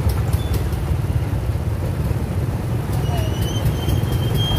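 Single-cylinder diesel engine of a công nông farm truck chugging at low speed in close traffic, mixed with scooter engines. A thin high squeal comes in about three seconds in and holds to the end.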